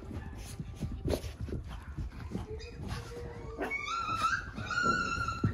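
Cavalier King Charles spaniel puppies whining and yipping as they play-fight and chase, with light scuffles and knocks of their scrambling. A long high-pitched whine rises in the last second and a half.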